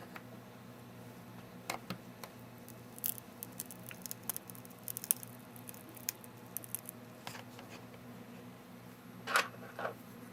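Small clicks and scratches of a prying tool working under an iPod Touch's glued-in battery, lifting it off its adhesive a little at a time, with a louder scrape near the end.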